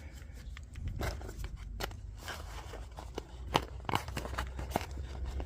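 Scattered small clicks and taps of a Craftsman magnetic screwdriver and its Torx bits being handled, over a faint low hum.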